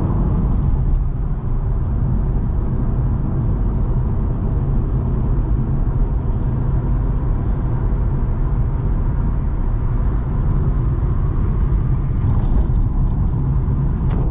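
Sea-Doo RXT-X 300 jet ski running steadily under way, its engine rumble mixed with rushing wind and water noise on the camera microphone.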